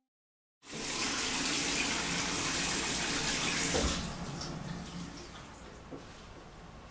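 Bathroom tap running into a sink, a steady rush of water that cuts in abruptly about half a second in and falls much quieter about four seconds in.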